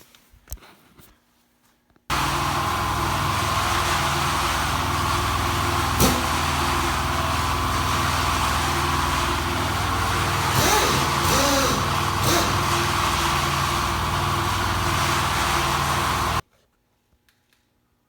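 Powered hoist running steadily for about fourteen seconds as it lifts the front of a snowmobile, starting and stopping abruptly, with a sharp knock a few seconds after it starts and some brief squeaks near the end.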